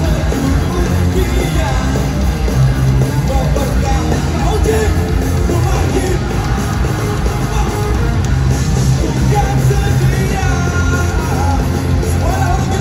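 Live rock band playing loud and steady, with drums, bass and electric guitars and a vocalist singing over them, picked up by a phone microphone in the audience.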